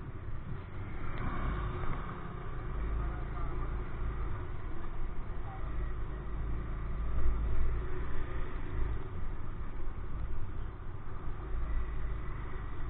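Motorcycle engine running at low speed, heard from on board as a steady low rumble.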